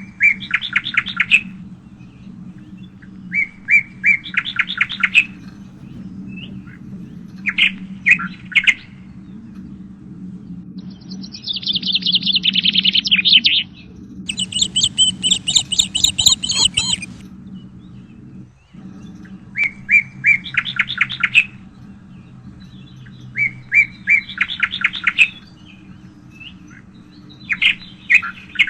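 Songbirds singing: short trilled phrases repeated every three to four seconds, with a longer, higher, busier stretch of song around the middle. A low steady hum runs underneath.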